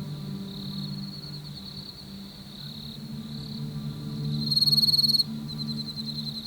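Crickets chirping in a steady pulsing trill, loudest for about a second around four and a half seconds in, over a low droning music bed.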